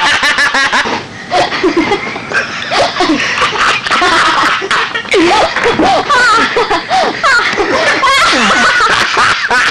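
Several people laughing and giggling together, overlapping, with a few voices mixed in.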